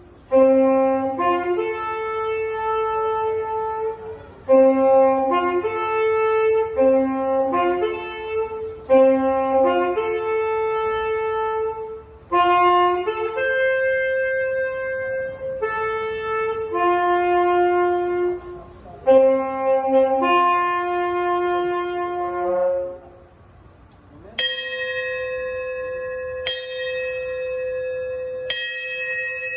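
A melody on a wind instrument, single notes stepping up and down in repeated phrases. It stops, and a brass ship's bell is struck three times about two seconds apart, each strike ringing on.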